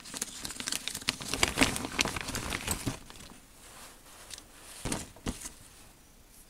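Plastic parts bag crinkling and rustling as a part is pulled out of it by hand. The crinkling is dense for about three seconds, then it goes quieter, with two short rustles later on.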